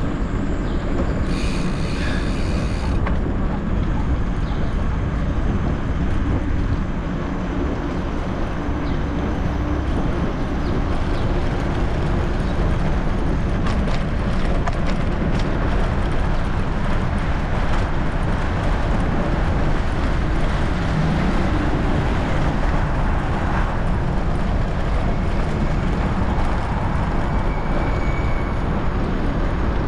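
Steady rumble and rattle of riding over rough off-road ground, with scattered knocks.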